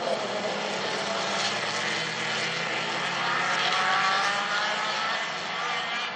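A pack of standard-class autocross cars racing on a dirt track, several engines revving hard at once. One engine's pitch rises from about three seconds in.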